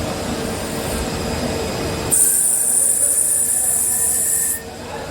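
CNC lathe running with a steady hum; about two seconds in a loud high-pitched squeal starts, holds steady, and cuts off abruptly about two and a half seconds later.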